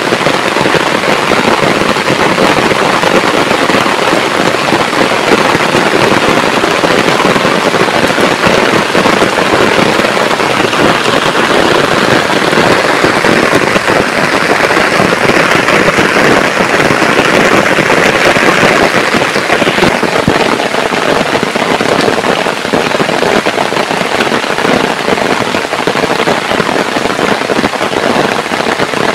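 Heavy rain falling steadily: a loud, dense hiss of countless drops pattering on surfaces, swelling a little for a few seconds midway.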